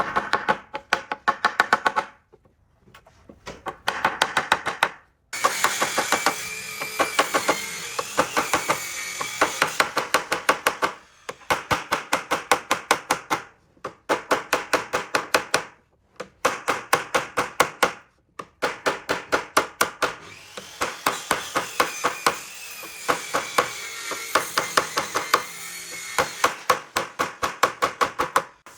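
Rapid, evenly spaced strikes or strokes of a tool working wood, several a second, in runs of about two seconds with short pauses between them.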